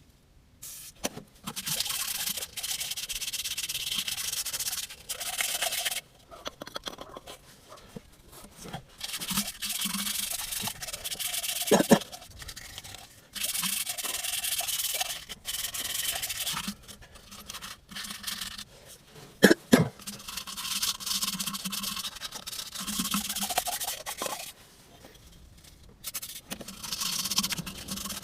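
Abrasive rubbing, as of an engine part being scrubbed or sanded clean by hand, in spells of a few seconds with short pauses. Two sharp knocks come about twelve and twenty seconds in.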